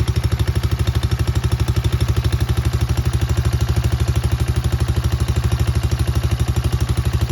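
Pentora 200cc fuel-injected single-cylinder ATV engine idling steadily, with an even, rapid beat that holds the same speed throughout.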